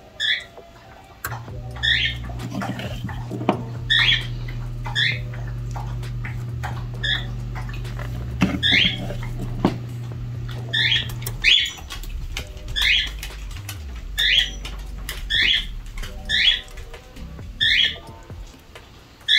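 A pet animal making repeated short, high squeaking calls, about one a second. A low steady hum runs underneath through the first half and then stops.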